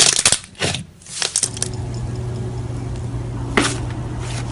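Slime being squished and worked in the hands, giving a quick run of sharp crackles and pops for about the first second and a half. After that a steady low hum takes over, with one more click later on.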